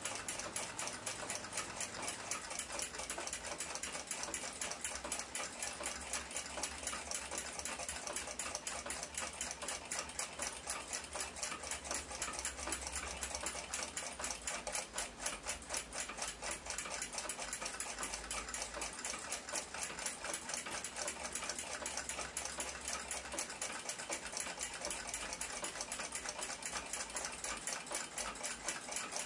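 Mechanical clock ticking fast and evenly, steady throughout.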